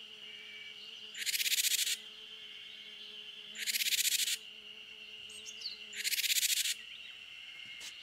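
Japanese tit 'jar-jar' snake alarm call: a harsh, buzzing rasp repeated three times, each about three-quarters of a second long and a little over two seconds apart, signalling a snake. A faint steady high drone runs underneath.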